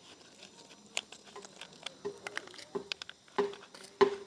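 Hard plastic clicking and knocking as a pressure washer spray gun and its hose quick connector are handled and fitted together, a few sharp clicks at irregular intervals growing busier toward the end, with a few brief squeaks of plastic rubbing on plastic.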